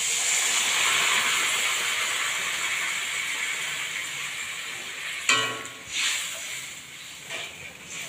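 Hot water poured onto oil-fried spice paste in a steel kadai, hissing and sizzling loudly at first and slowly dying down as the gravy forms; the masala had been fried until its oil separated. About five seconds in comes a sharp metal clank, then a few softer knocks as the spatula stirs.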